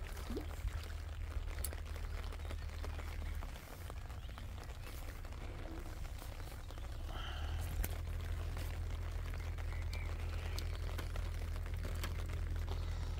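Wind rumbling on the microphone, easing off for a few seconds about a third of the way in, with scattered faint clicks from handling close to the phone.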